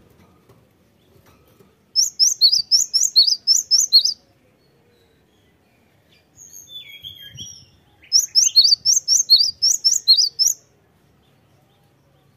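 Cinereous tit singing: two bouts of rapid, high-pitched repeated two-note phrases, about four a second, with a few softer, lower calls in the pause between them.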